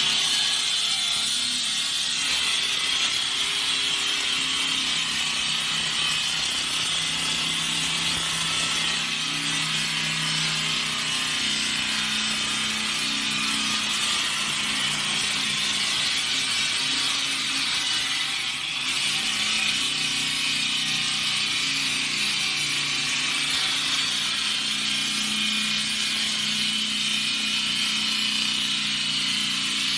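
Large concrete saw's water-fed diamond blade cutting into concrete: a steady high-pitched grinding with a low motor hum underneath, briefly easing once in the middle.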